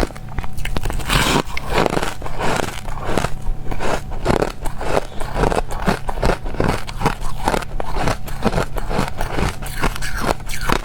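Crushed ice being bitten and chewed: a steady run of sharp, crisp crunches, several a second.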